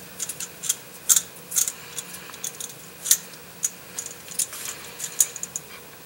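Light, irregular clicks and small scrapes from a rubber O-ring being worked onto a plastic transmission wiring harness connector by hand, a dozen or so sharp ticks over a faint steady hum.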